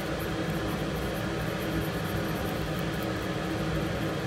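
Steady fan-like hum with a faint, irregular high crackle of no-clean flux paste sizzling under the soldering iron tip as it is dragged across the QFN chip's pads to tin them.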